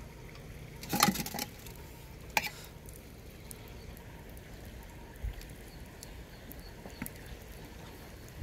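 A few sharp clinks and scrapes of a metal spoon and meat against the side of a metal cooking pot, the loudest about a second in and another near two and a half seconds, with fainter taps later, over a low steady rumble.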